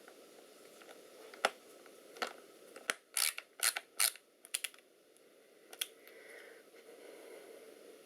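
Small screwdriver driving the battery screws into a laptop chassis: scattered sharp clicks, then a run of short scraping rasps about three to five seconds in.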